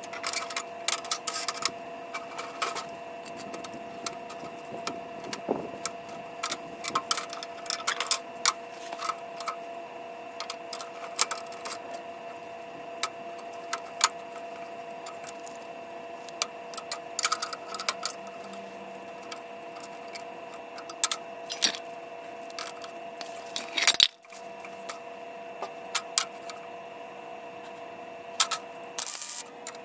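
Irregular clicks, taps and knocks of tools and parts being handled during building work, over a steady two-tone hum.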